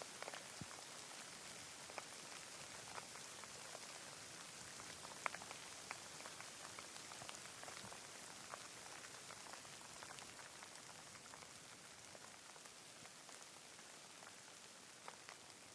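Steady rain: an even hiss with scattered individual drops ticking distinctly, one louder drop about five seconds in.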